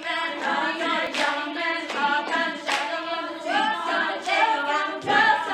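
A show choir singing in harmony, with a few sharp hits on the beat about every second and a half.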